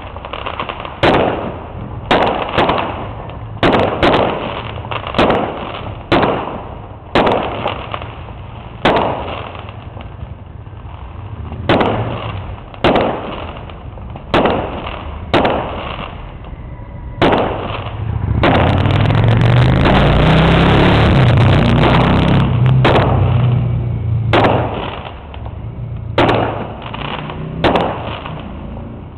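Fireworks shells bursting overhead, sharp bangs coming every second or so, each with an echoing tail. Past the middle the bangs give way to about four seconds of continuous loud rushing noise with a deep rumble, then the bangs resume.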